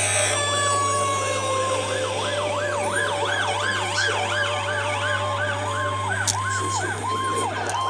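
Fire truck sirens: a fast rising-and-falling wail, joined a few seconds in by a second siren switching between two steady notes, over a steady low drone.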